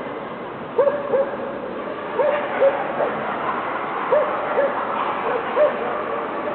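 A dog barking in pairs of short barks, a pair about every second and a half, over the steady background hubbub of a crowded show hall.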